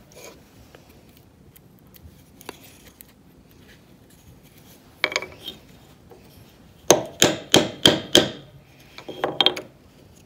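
Wooden dowel being tapped down into a square wooden block with a piece of scrap wood used as a mallet: a couple of knocks about five seconds in, then a run of sharp wooden knocks under a second apart, and a quicker cluster near the end.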